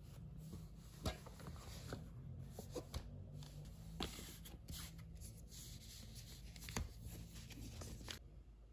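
Thin plastic sheet-mask pouches rustling and crinkling faintly as a hand slides and rearranges them, with a few light taps; the rustling stops shortly before the end.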